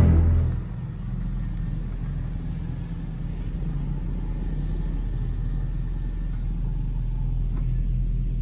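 Perodua Viva hatchback idling, a steady low rumble.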